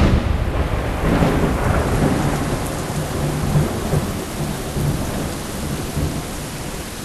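Thunder rumbling on and slowly dying away after a strike, over steady rain.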